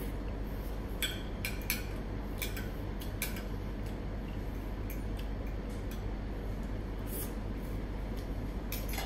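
Knife and fork clinking and scraping on a ceramic plate as a piece of sautéed mackerel is cut, a scattering of light clicks, most of them in the first few seconds, over a steady low hum.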